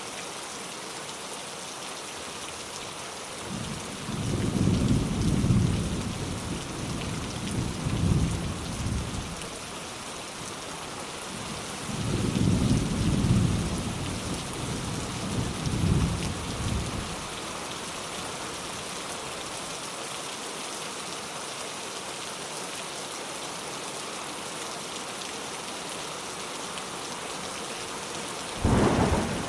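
Steady rain with thunder. Two long, low rolls of thunder begin about 4 and 12 seconds in and last several seconds each, and a sudden clap breaks in near the end.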